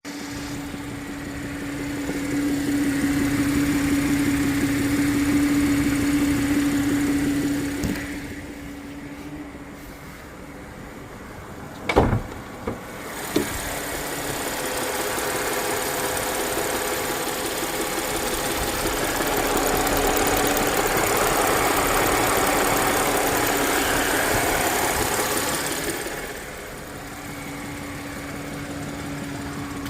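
2015 Audi A8 engine running warm with a knocking sound that only appears once the car is warm; the cause is unknown to the owner. A steady hum runs at the start and again near the end, and a few sharp thumps stand out about twelve to thirteen seconds in.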